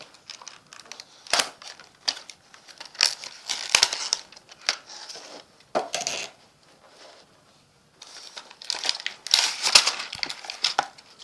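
Toy dishes being rummaged out of a box: irregular clicks and clatter with rustling, a brief pause a little past the middle, then more clatter.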